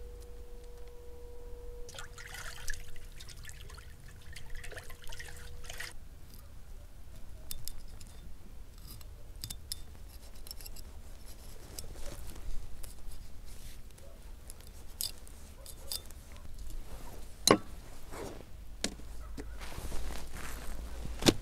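Knife working through raw eel flesh on a plastic-covered table: wet cutting, squelching and scraping with scattered clicks, and two sharp knocks, the second near the end. A steady tone sounds through the first few seconds.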